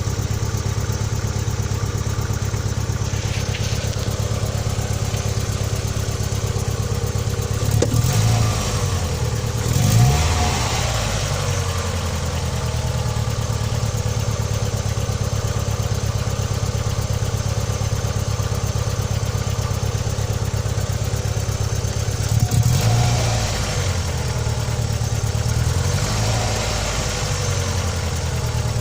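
Opel Vectra B car engine idling steadily, blipped up in brief revs about four times, around a third of the way in and again in the last third, each falling back to idle.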